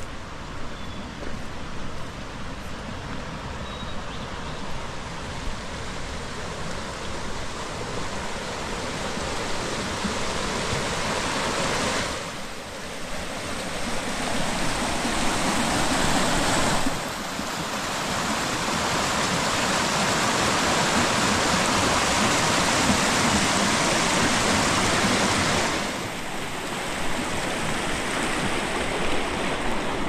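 Rushing water: a steady, full rush of a stream or falls, loud and even, stepping abruptly louder or softer about twelve, seventeen and twenty-six seconds in.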